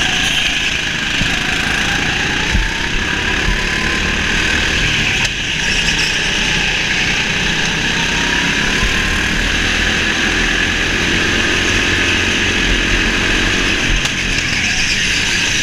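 Go-kart running at speed around an indoor track, heard on board: a steady, loud motor noise whose pitch rises and falls as it goes through the corners.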